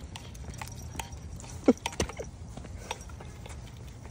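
Small dogs and a person walking on a concrete sidewalk: scattered light clicks and taps of steps. One short, falling squeak about a second and a half in is the loudest sound, followed by a sharp click.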